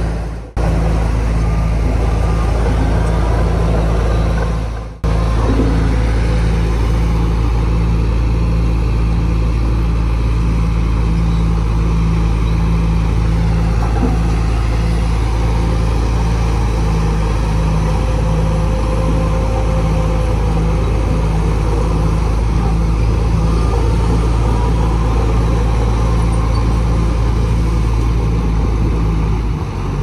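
Heavy diesel engines of bulldozers working earth fill, a loud steady drone with a regular low pulse. The sound drops out briefly about half a second in and again at about five seconds.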